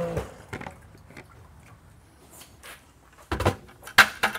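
A Kärcher electric pressure washer's steady motor hum cuts off just after the start. Then come scattered small clicks and knocks, the loudest a short cluster about three and a half seconds in and another about four seconds in.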